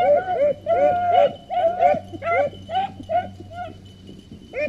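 Beagles baying while running a rabbit, a quick string of overlapping bays from more than one hound that thins out after about three seconds, with one last bay near the end. The baying is the sign that the pack is on the rabbit's scent.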